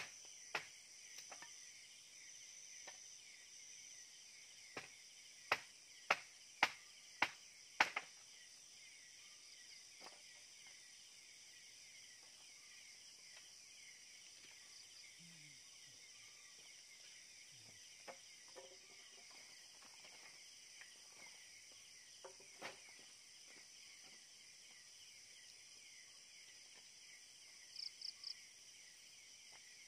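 Steady chorus of crickets and other insects. A run of sharp knocks, five in about two and a half seconds, comes a few seconds in, with a few single knocks later and three quick high chirps near the end.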